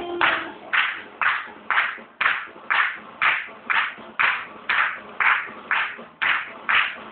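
Audience clapping in unison on the beat, about two claps a second, to a paso doble; the music's melody drops away about half a second in, leaving the steady clapping.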